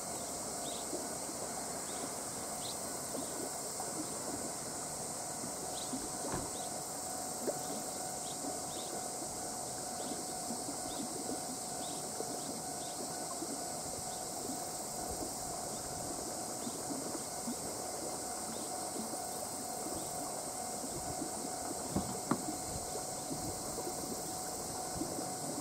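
Steady high insect drone with scattered short high chirps, over a faint steady hum.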